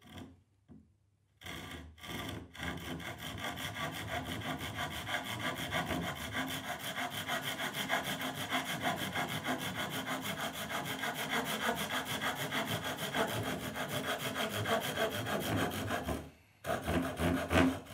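Tajima Japanese pull saw cutting through a thin plywood panel with quick, even strokes. It starts with a few strokes a second or two in, runs steadily, and stops shortly before the end.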